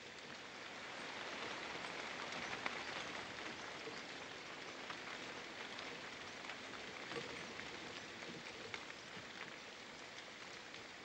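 Steady rain falling on ivy and poplar leaves: an even hiss with many small drops ticking.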